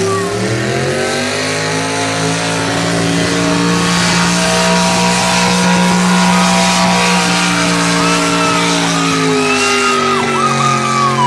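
Pickup truck's engine at full throttle pulling a weight-transfer sled. The revs climb over the first second or two, hold high and steady, then fall away from about eight seconds in as the truck comes to a stop at the end of the pull.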